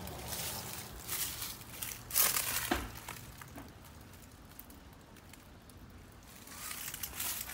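WCI window air conditioner running with a faint low hum, under rustling and crunching noises, loudest about two seconds in and again near the end.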